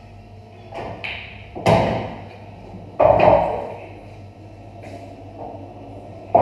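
Pool balls clacking on a pub pool table as shots are played and balls drop into the pockets. There are two loud knocks about a second and a half apart, each with a short rumbling tail, and a few lighter clicks around them.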